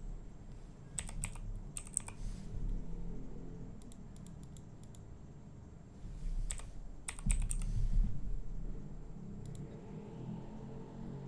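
Computer keyboard keys clicking in short clusters of several quick keystrokes, with pauses between the bursts.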